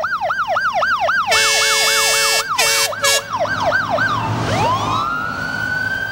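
Emergency vehicle sirens on a convoy of fire engines: a siren yelps up and down about three times a second, and a horn cuts across it with three blasts, the first long, a little over a second in. About four seconds in, a second siren winds up and holds a long wail.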